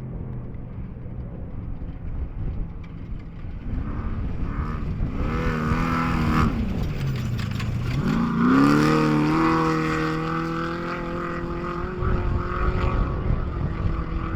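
Off-road race vehicle's engine revving up, easing off briefly about halfway through, then revving hard again and holding high revs.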